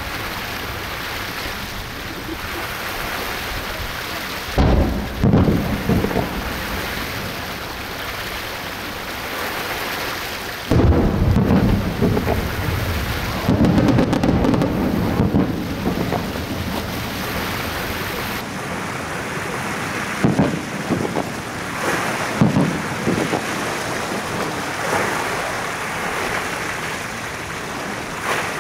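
Aerial fireworks shells bursting over the sea: deep booms with rumbling echoes, a pair about five seconds in, a longer run of bursts from about eleven to sixteen seconds, and single booms near twenty and twenty-two seconds, over a steady background hiss.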